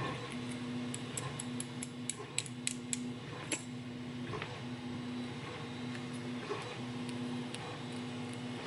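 Light metallic clicks and ticks from handling a padlock's cylinder and pin parts, clustered in the first few seconds and sparser after. A low hum pulses on and off about once a second underneath.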